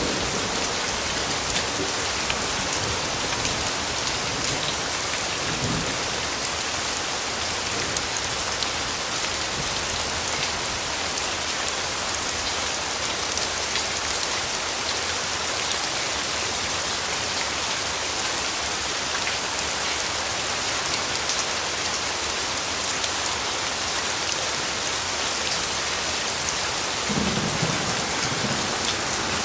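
Steady heavy rain falling on surfaces, an even hiss of drops, with a brief low rumble near the end.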